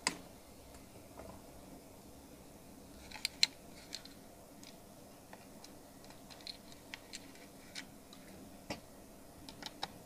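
Scattered small clicks and taps of tools and parts being handled on an electronics repair bench, with a sharp click at the very start and a quick cluster of clicks about three seconds in. A faint steady hum runs underneath.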